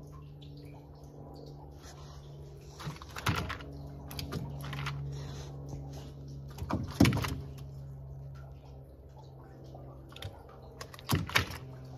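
Steady low hum of an electric trolling motor on a fishing boat, with a few sharp knocks and clicks over it, the loudest about seven seconds in.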